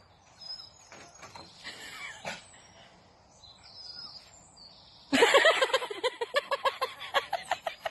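An animal's rapid, repeated calls, about five or six a second, start suddenly about five seconds in after a stretch of faint scattered sounds.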